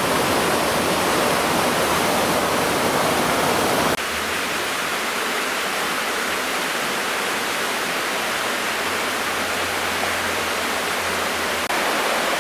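Water pouring over a small river weir, a steady rush. About four seconds in it gives way to the slightly quieter, steady rush of a fast river running over rocks.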